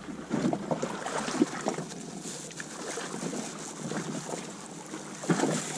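Wind buffeting the microphone on a kayak on open water, with irregular small knocks and rustles.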